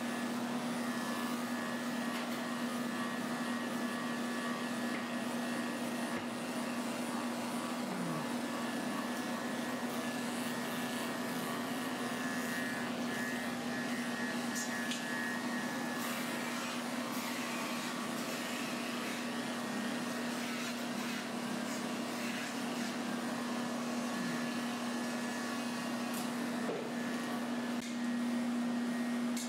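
Electric dog-grooming clippers running with a steady hum as they shave a matted schnauzer coat down short.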